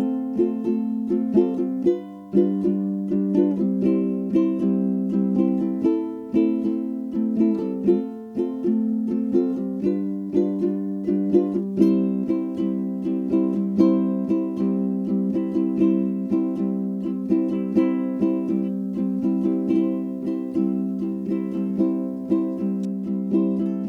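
Background music: a ukulele plucking a steady, bright tune.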